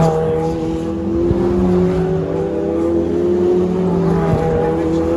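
A string of sports race cars passing close by one after another, their engines at high revs and rising in pitch as they accelerate along the straight.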